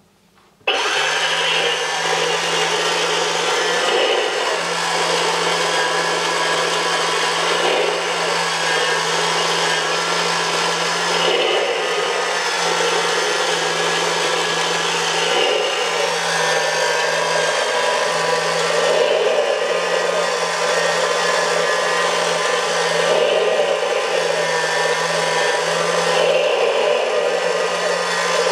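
Haynes Porsche 911 flat-six model engine kit switching on about a second in and running steadily. Its small electric motor whirs with a steady hum while the clear plastic moving parts clatter.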